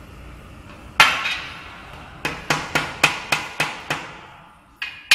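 Hammer blows on the steel tube stacking frame of an LED screen: one loud ringing blow about a second in, then a quick run of seven blows at about three a second, and two more near the end.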